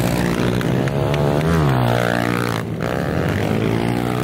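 Pit bike engines revving hard on track, the pitch climbing and dropping as riders accelerate, shift and back off, with a brief break a little past halfway.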